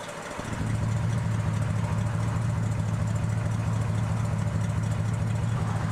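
A vehicle engine idling steadily with a low, even hum. The sound dips briefly at the very start.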